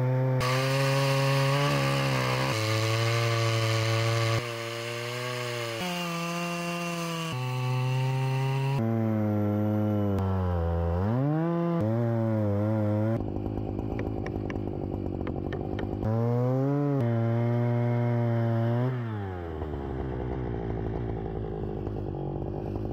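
Two-stroke chainsaw in a chainsaw mill at full throttle, ripping lengthwise through a cedar log on the first skim cut. The engine note dips and recovers several times as the saw bogs in the wood, then drops lower near the end.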